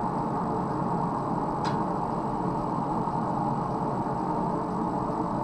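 Steady roaring background noise of a blacksmith's forge running, with one faint metallic tick about a second and a half in.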